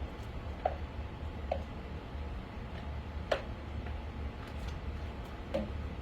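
A spoon stirring a pot of chicken and dumplings as the gravy thickens, clinking against the pot four times at irregular intervals, loudest about three seconds in, over a low steady hum.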